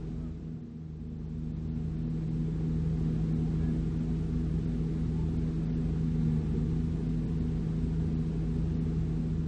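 Large diesel engine of the heavy equipment running steadily, a low drone with a steady hum.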